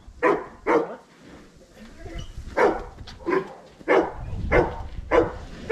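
Dog barking repeatedly in short, sharp barks: two, a pause of about two seconds, then a steady run of barks about every half second.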